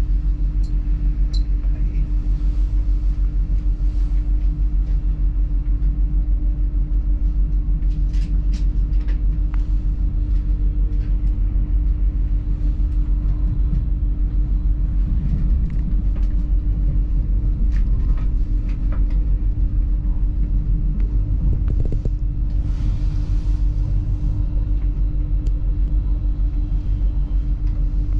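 Cabin sound of a Class 800 Hitachi AT300 train rolling into a station: a steady low rumble with a constant hum, and a few sharp clicks along the way.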